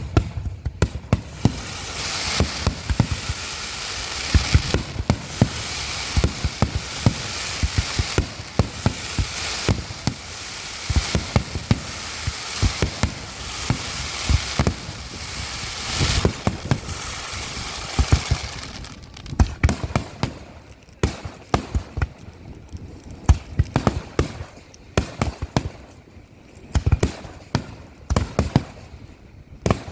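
Aerial fireworks in a finale barrage: rapid, overlapping shell bursts over a continuous crackle for most of the first twenty seconds, then thinning out to separate booms near the end.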